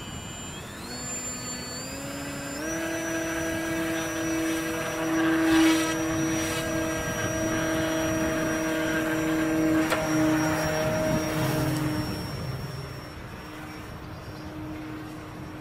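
Electric motor and propeller of a DW Hobby Tiger Moth RC model plane whining, speeding up in three steps over the first few seconds, then holding a steady high whine that drops away and grows fainter about twelve seconds in.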